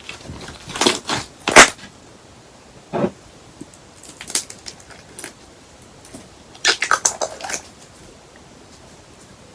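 Slime being pressed and squished by hand, giving crackly, crunchy pops in short clusters: a burst about a second in, single pops around three and four seconds, and a dense run of crackles near seven seconds.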